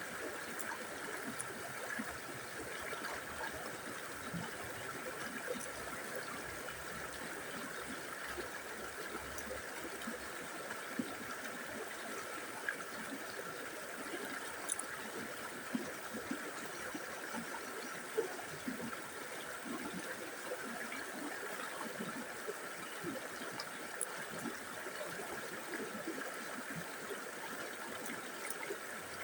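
River water flowing steadily over stones, with small gurgles and splashes.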